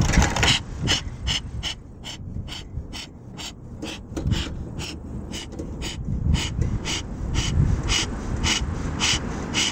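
Bee smoker bellows being pumped steadily, a short breathy puff of air about three times a second, fanning the burning cedar shavings in the fire chamber to keep them lit and hot.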